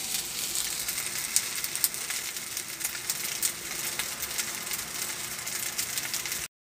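Fried rice sizzling in a hot wok: a steady high hiss with scattered sharp crackles and pops. It cuts off suddenly near the end.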